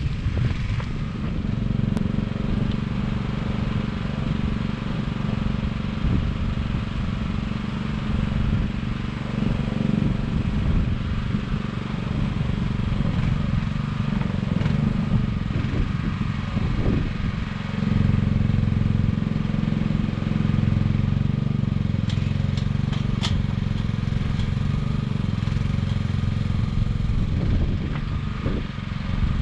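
An engine running steadily at constant speed, a little louder for a few seconds past the middle, with a few light clicks later on.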